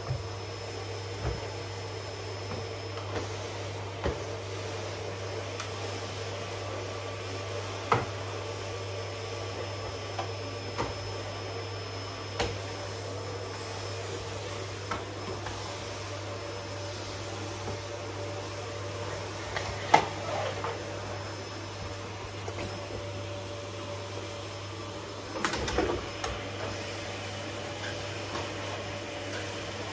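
Canister vacuum cleaner running steadily as its floor nozzle is pushed over tiles and carpet, with occasional knocks and clatters as it bumps against things. The sharpest knock comes about twenty seconds in, and a short cluster of clatters comes a few seconds later.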